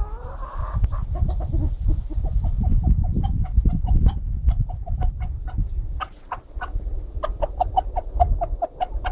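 Chickens clucking in a fast, even run of short clucks, about five a second, growing stronger about six seconds in.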